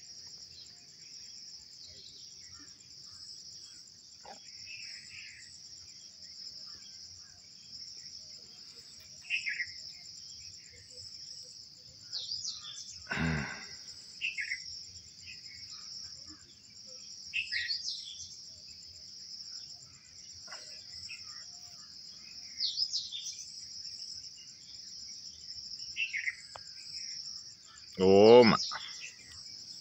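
Steady high-pitched chirring of crickets and other insects, with short bird calls scattered through it. A voice calls out briefly about halfway through, and again, louder, near the end.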